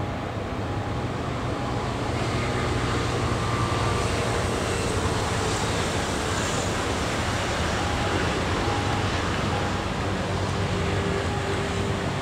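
Steady low hum and rumble of a Thai ordinary-class diesel passenger train running as it moves away along the track, mixed with city traffic noise.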